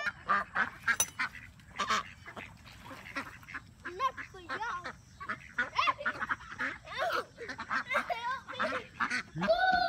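A flock of ducks, white domestic ducks, black ducks and mallards, quacking over one another in many short, overlapping calls while crowding for food. A few sharp clicks come in the first two seconds.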